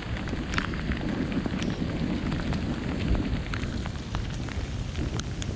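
Steady storm rain with a low rushing underneath and scattered sharp ticks of individual drops.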